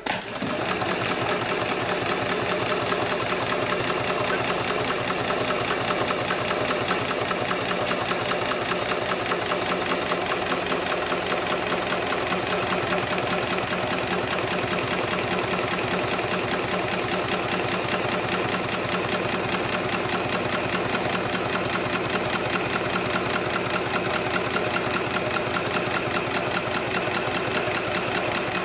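HIGHTEX 7273PLK programmable automatic sewing machine stitching heavy camouflage belt webbing, its needle running at speed in a fast, even rhythm with a steady high whine. It starts abruptly and runs without a break.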